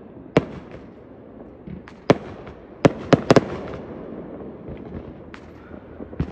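Neighbourhood fireworks going off: a series of sharp bangs at uneven intervals, with a quick cluster of three about three seconds in, over a low background rumble.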